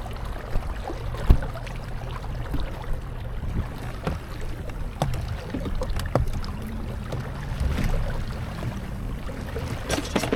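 Fishing boat on open water: a steady low rumble with scattered light knocks and taps throughout.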